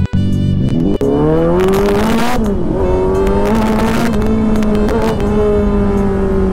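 Kawasaki Z900's inline-four engine under acceleration: its pitch rises for about two seconds, dips briefly, then holds steady at cruising speed.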